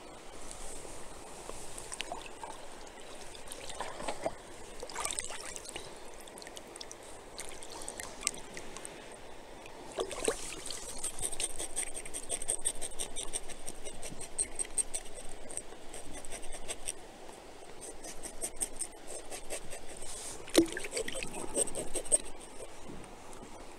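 Shallow creek water trickling and splashing around hands cleaning and rinsing a freshly caught trout in the stream, with light scraping and clicking from the knife on the fish.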